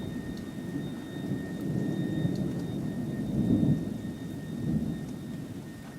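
Thunder rumbling low during a rainy thunderstorm, swelling around the middle and easing again. A faint, steady high-pitched whistling whine of unknown origin holds above it, which the recordist wonders may come from ionization in the storm.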